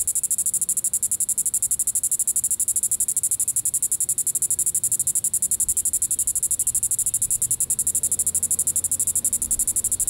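Diceroprocta vitripennis (green-winged cicada) calling: a high-pitched, continuous buzz made of fast, even pulses, held steady.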